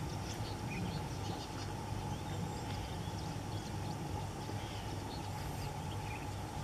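Outdoor background: a steady low rumble with faint, scattered bird chirps.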